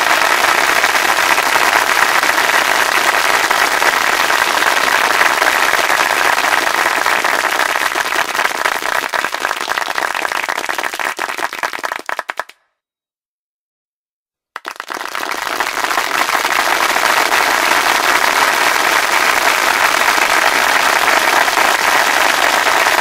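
Dense crackling of many hands clapping, like applause. It thins out, stops dead for about two seconds just past the middle, then starts again at full strength.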